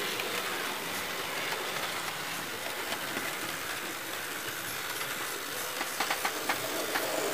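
OO gauge model steam locomotives running along the track: a steady whirring hiss of motors and wheels on rail, with a quick run of clicks about six seconds in as wheels cross rail joints.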